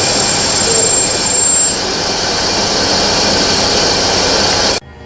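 Nomura DS 10EX3 automatic lathe running while cutting: a loud, steady machining noise with a thin high whine that stops about two seconds in. The sound cuts off abruptly near the end.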